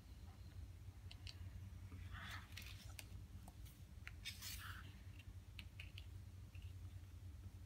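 A page of a hardcover photo book turned by hand: soft paper rustles about two seconds in and again around four and a half seconds, with a few light clicks and taps of paper.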